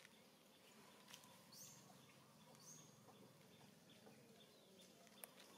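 Near silence: faint outdoor ambience with two short, faint high chirps and a few light clicks.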